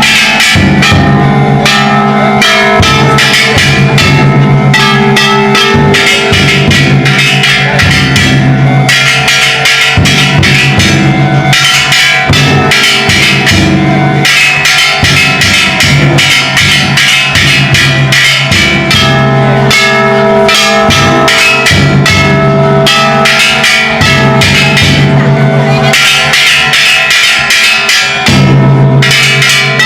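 Ishidori-bayashi festival music: the float's large taiko drum and bronze hand gongs (kane) struck loudly in rapid, unbroken strokes, with the gongs ringing on.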